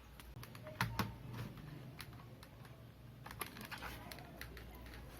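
Scattered light clicks and taps of hands working on a plastic laptop, a few sharper clicks about a second in and a small cluster past the middle.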